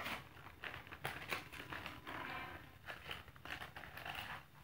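Folding hand fan being waved close to the microphone: irregular rustling with soft clicks from its folds and ribs.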